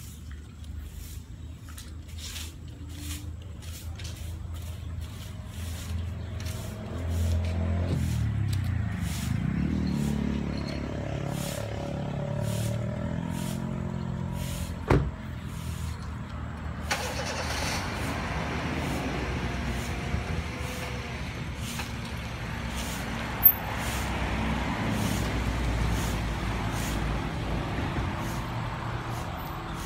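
Car engine running and manoeuvring at low speed, its pitch rising and falling as the car pulls out and moves off. There are two sharp knocks, about halfway and again later.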